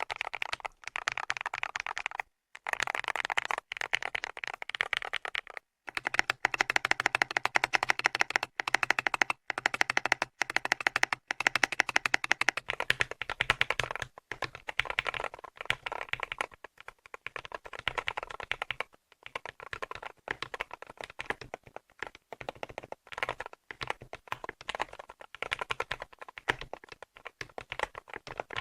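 Typing test on a mechanical gaming keyboard fitted with translucent keycaps: a fast, continuous clatter of key presses, with a few short pauses in the first six seconds.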